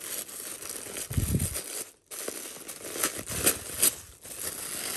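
Tissue paper rustling and crinkling as a wrapped gift is unpacked from a box by hand, with a dull bump about a second in.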